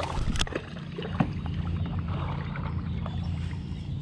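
Water splashing and sloshing beside a kayak as a hooked largemouth bass thrashes at the surface, with a few sharp knocks, the loudest about a second in, over a steady low hum.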